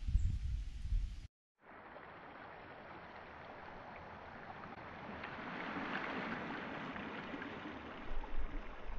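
Small waves lapping on a pebble beach: a steady hiss of water on stones that swells slowly. Before it, about a second of low rumble that cuts off abruptly.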